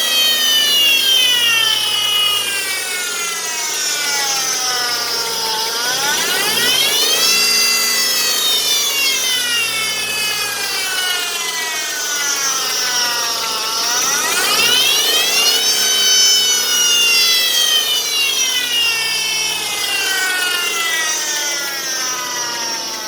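A vehicle engine's high-pitched whine rising and falling with engine speed: it climbs quickly twice, about six and fourteen seconds in, and sinks slowly after each climb. It is the abnormal noise from the engine.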